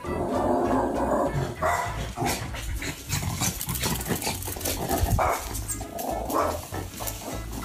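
A small dog barking again and again in short, separate barks.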